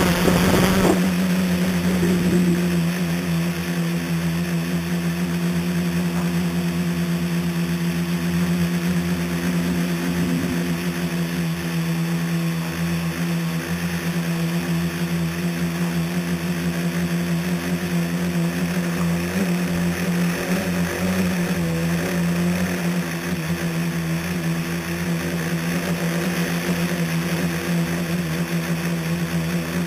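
A scratch-built tricopter's motors and propellers hum steadily in flight, heard from the camera on board. The sound is louder for the first second or so, then holds a steady pitch with small shifts.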